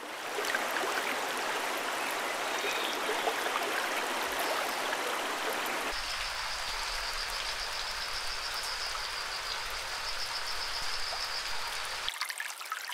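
Steady rushing hiss like rain or running water. About six seconds in it turns thinner, with a high pulsing whine and a low hum added, and it cuts off near the end.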